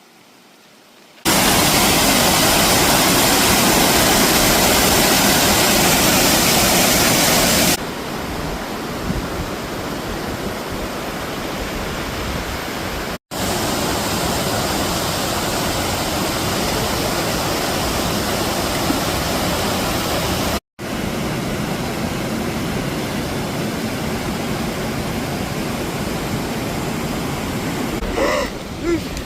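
Steady rushing water of a waterfall or fast stream, a full even noise. It is loudest for the first six seconds or so, then softer, and breaks off suddenly twice.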